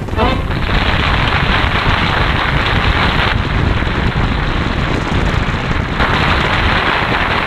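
Loud, steady rush of wind and road noise from a car driving at speed, with air buffeting the microphone at the side window.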